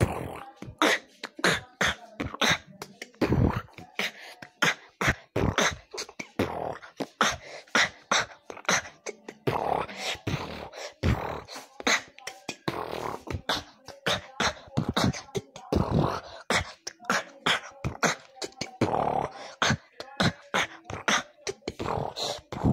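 Beatboxing: quick, rhythmic vocal percussion hits with voiced sounds in between.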